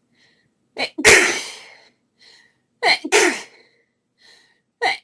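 A woman sneezing over and over in a fit: three sneezes about two seconds apart, each a quick catching gasp in followed at once by a loud sneeze that trails off. The third starts right at the end.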